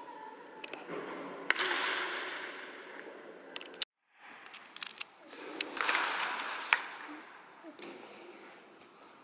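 Two sharp cracks of a wooden bat hitting a baseball, about five seconds apart, echoing in an indoor batting cage, with smaller clicks of balls and equipment between them.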